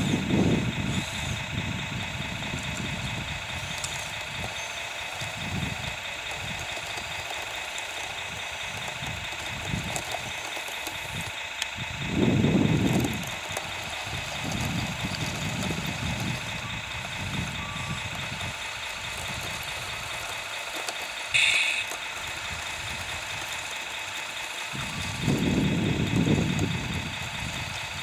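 Radio-controlled tracked loader running as it works soil, a steady high electric whine from its motors and gear drives. There are a few louder low rumbles and one brief high-pitched blip about three-quarters of the way through.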